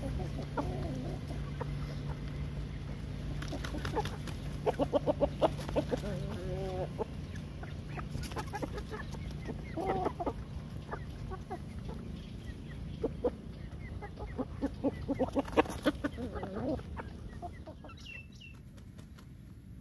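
Chickens clucking, young roosters among them, with clusters of calls about 5, 10 and 15 seconds in and many short taps in between. A steady low hum runs underneath.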